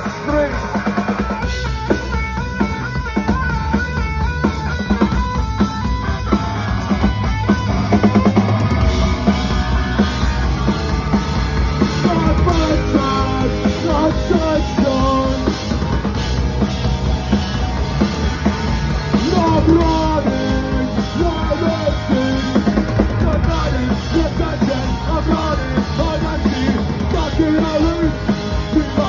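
Punk rock band playing live and loud: pounding drum kit and distorted electric guitar, with the singer's vocals over them.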